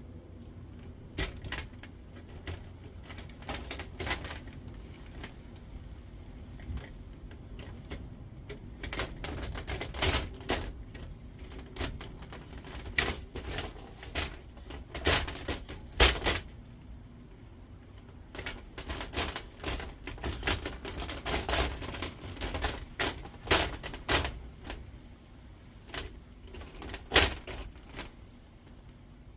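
Irregular clicks, taps and knocks of small scrap metal parts from a stripped induction hob being handled and set down, sometimes several in quick succession, with the loudest knocks around the middle and near the end.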